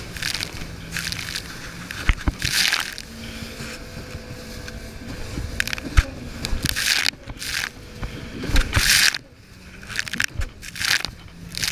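Yamaha WaveRunner personal watercraft running at speed over chop: the engine hums faintly under a rushing of wind and spray on the microphone that surges in gusts about once a second, with a few sharp knocks as the hull hits waves.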